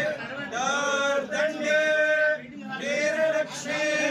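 Male Hindu priests chanting blessing mantras, in held, sung phrases of about a second and a half with short breaks for breath.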